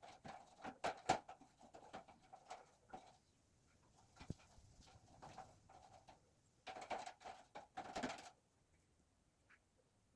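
A cat vocalising amid scattered clicks and knocks, with a rougher, noisier stretch lasting over a second near the end.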